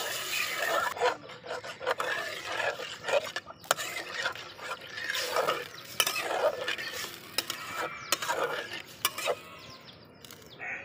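Long metal spatula stirring and scraping potatoes in simmering curry in an aluminium karai (wok), the metal scraping the pan in repeated strokes roughly once a second.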